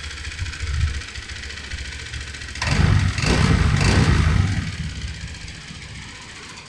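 Honda PCX 150 scooter's single-cylinder engine running, revved up about three seconds in and then settling back. The engine has a strange noise that a previous shop suspected came from piston skirt clearance and cylinder wear.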